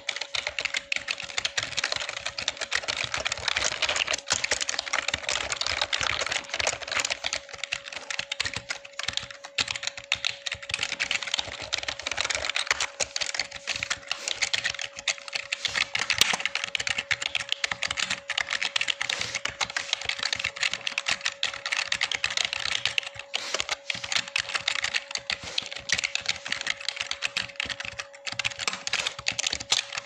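Continuous fast typing on a Razer computer keyboard: a dense, unbroken run of key clicks and clacks, with a faint steady tone underneath.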